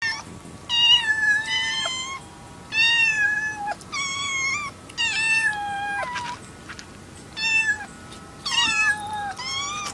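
Young kittens meowing over and over, about eight high-pitched calls about a second apart.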